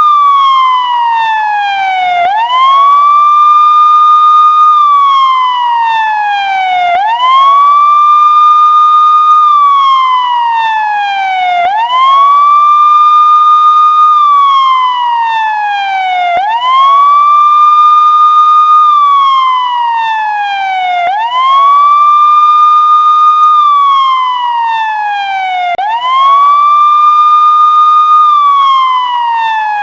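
Emergency-vehicle siren sounding a slow wail, loud and clean: each cycle jumps up quickly, holds the high note for about two seconds, then slides down slowly, repeating about every five seconds.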